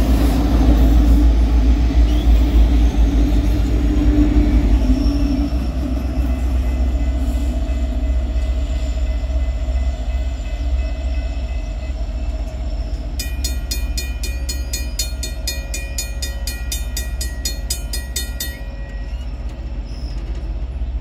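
Rear distributed-power SD70ACe diesel locomotives and coal cars of a BNSF coal train rumbling past close by, then fading steadily as the train moves away. About two-thirds of the way through, a rapid, evenly pulsed ringing sounds for about five seconds and then stops.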